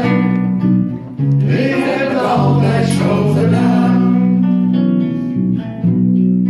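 Live acoustic band music: guitar playing under sustained notes, with singing that is strongest from about one to nearly four seconds in.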